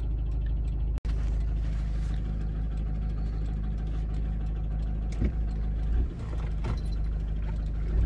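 Camper van engine running steadily with a low hum and road rumble. The sound drops out for an instant about a second in, and a few light knocks come in the second half.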